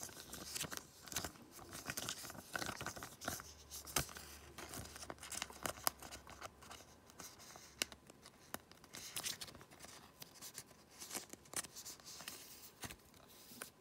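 Clear plastic card sleeve crinkling and rustling as an autographed baseball card is slid into it and handled, with irregular soft clicks and scrapes.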